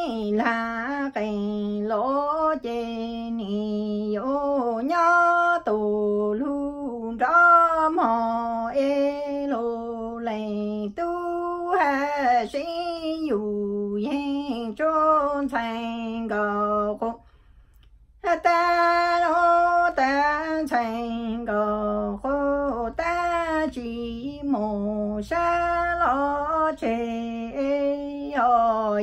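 A woman singing Hmong lug txaj, traditional sung verse, solo and unaccompanied, in long held phrases that step up and down in pitch. The singing stops for about a second a little past the middle, then resumes.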